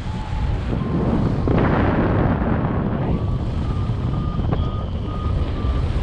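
Wind rushing over the microphone in paraglider flight, loudest in a gust about a second and a half in, with a paragliding variometer beeping in short tones, about two to three a second, that step slightly higher in pitch: the vario's climb tone, a sign of rising air.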